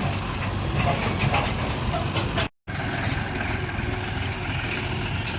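Diesel engine of heavy earthmoving machinery running, with scattered metallic clicks and clanks in the first half. The sound cuts out for a moment about two and a half seconds in, then the engine hum carries on steadily.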